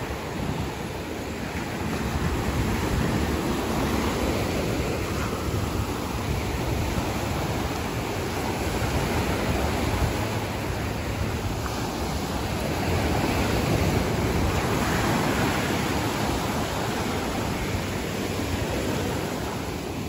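Small waves running up and foaming over a sandy beach: a steady rush of surf that slowly rises and eases.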